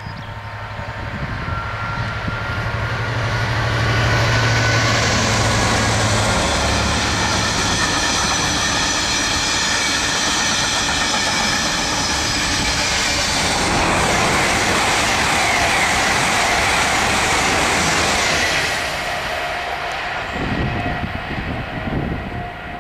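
GB Railfreight Class 66 diesel-electric locomotive, with its two-stroke EMD V12 engine, hauling a train of engineering wagons past at speed. Its low engine drone builds as it approaches, then gives way to the steady rumble of the wagons rolling by with some high steady ringing tones. The sound fades as the train draws away near the end.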